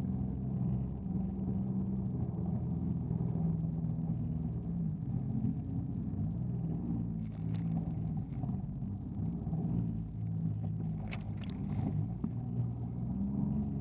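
Jet ski engine running steadily at a low, even pitch, with a few short sharp knocks or slaps, the loudest about eleven seconds in.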